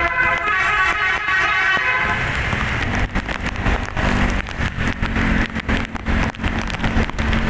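A tourist bus's basuri telolet musical air horn plays a stepping multi-note tune for about two seconds, then gives way to a loud noisy rush with crackles and a steady low tone.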